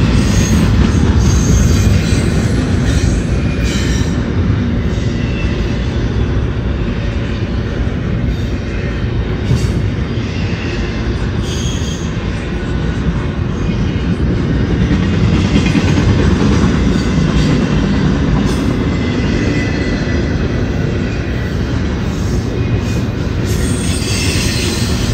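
Double-stack intermodal well cars of a freight train rolling past at close range: a loud, steady rumble and clatter of steel wheels on rail, with short faint wheel squeals now and then.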